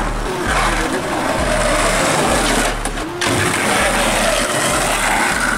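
Skateboard wheels rolling over rough, cracked asphalt: a loud, steady roar, with a short break about three seconds in.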